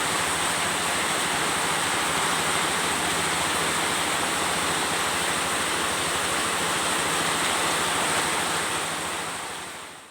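Storm wind and high waves on the coast: a steady rush of wind and surf. It fades out just before the end.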